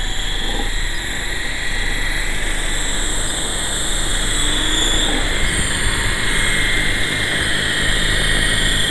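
Electric motors and coaxial rotors of a GT Model QS8006 RC helicopter running with a steady high whine as it hovers low on its training gear, the pitch drifting slightly with throttle and growing a little louder about halfway through.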